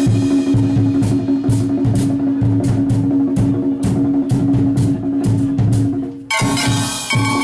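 Trinidadian steelband engine-room percussion: brake-drum irons are struck in a fast, driving metallic rhythm over a drum kit's steady bass-drum beat, with a steady low tone underneath. About six seconds in, clearer ringing metallic tones join.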